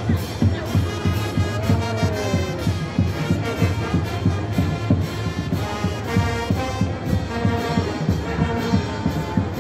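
Brass band playing lively music over a steady drum beat.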